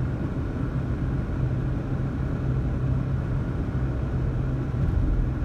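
Steady low drone inside a moving car's cabin: the engine hum and the tyres rolling over a snow-covered road.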